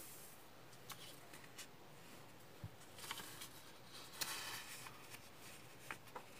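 Faint rustling and crinkling of a sheet of origami paper being handled and folded in half, with a few short creasing clicks and rustles, busiest around three and four seconds in.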